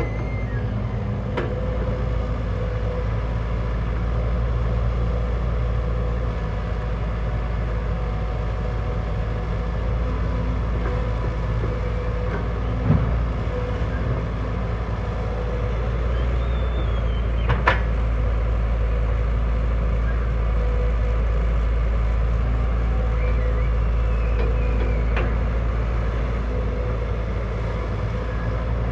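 Heavy construction machine's diesel engine running steadily under work, with a couple of sharp metal clanks and a faint squeak partway through.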